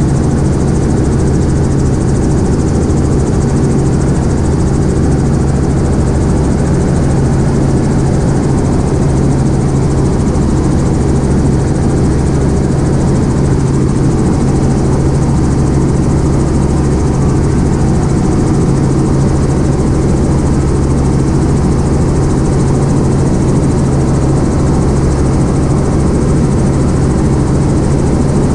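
Light helicopter in cruise flight, heard from inside the cockpit: a steady, loud drone of engine and rotor with a strong low hum, unchanging throughout.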